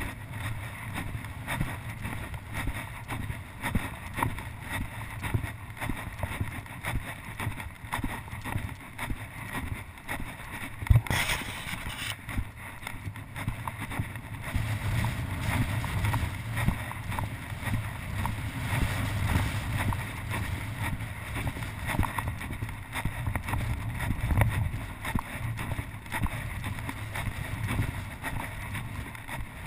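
Wind buffeting the microphone of a walker's wide-angle action camera, a steady low rumble and flutter, with footsteps in loose sand under it. There is a sharp knock about eleven seconds in.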